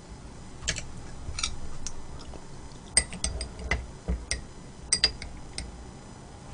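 Eating utensils clinking against a dish in scattered light strikes, each with a brief high ring, with a quick run of clinks a little past halfway.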